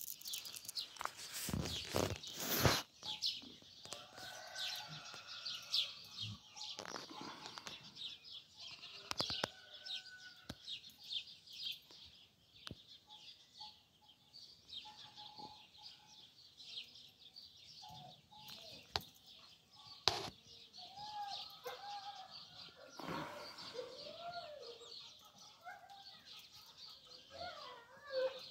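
Farmyard birds: small songbirds chirping continuously, with chickens clucking, their calls clearest in the second half. Scattered knocks and rustles sound throughout, with a louder thump about two seconds in.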